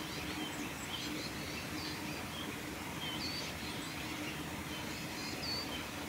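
Male Eurasian bullfinch singing: a string of short, soft whistled notes, about two a second, some lower and some higher. Beneath them is a faint steady low hum.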